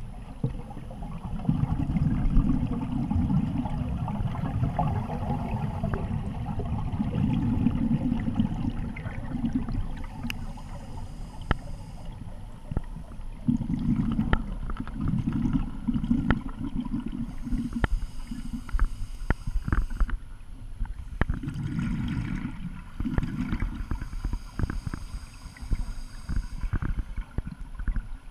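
Scuba breathing heard underwater: exhaled air leaving a regulator in long gurgling rushes of bubbles that come and go every few seconds, with scattered small clicks in the quieter gaps between breaths.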